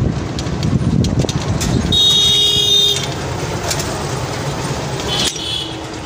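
Passenger train running across an overhead railway bridge: a steady rumble and clatter of wheels and coaches. A horn sounds for about a second some two seconds in, and briefly again near the end.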